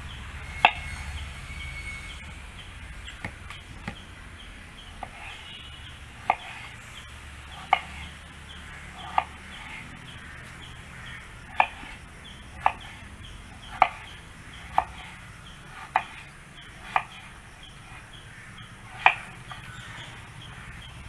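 A knife cutting vegetables on a cutting board: about a dozen sharp, separate chops, spaced irregularly and coming roughly once a second through the middle.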